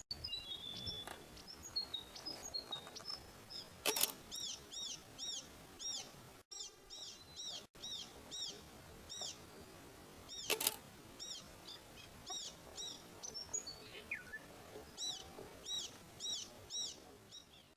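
Inland thornbill singing: runs of short, high, arched notes repeated two to three a second, with thinner twittering in the first few seconds. Two sharp clicks sound, about four seconds in and again near eleven seconds.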